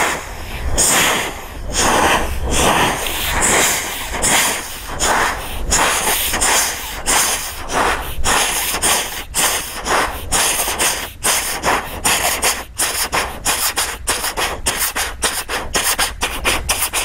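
Vocal imitation of a train in motion: rhythmic breathy chuffs, voiceless 'cha-fa' syllables blown through cupped hands, alternating two higher and two lower puffs. The puffs come faster toward the end.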